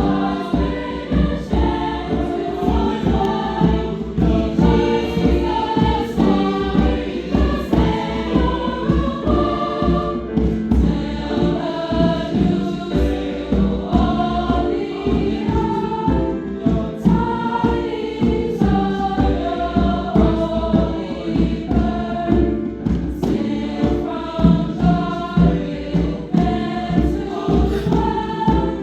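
High school choir singing with accompaniment and a steady beat.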